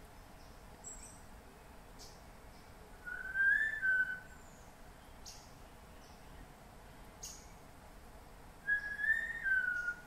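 Macgregor's bowerbird singing: two whistled phrases a few seconds apart, each about a second long, rising slightly and then falling away, with a few faint high ticks between them.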